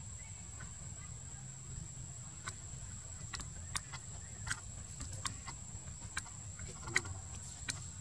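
Outdoor ambience: a steady high-pitched whine over a low rumble, with scattered sharp clicks roughly once a second.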